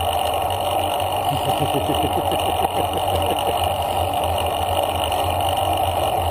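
Steady wind and rolling noise on a bicycle-mounted action camera's microphone while riding along a paved trail at about 9 mph.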